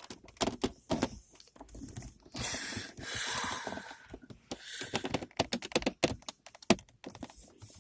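Many sharp plastic clicks and knocks, with a stretch of scraping and rustling in the middle, as the handbrake gaiter and its trim surround are forced out of a Volvo V70's centre console.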